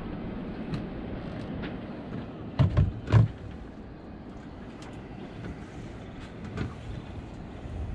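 Steady wind and water noise aboard a sailboat rolling at anchor, with scattered light clicks and knocks and two heavier thumps about two and a half and three seconds in.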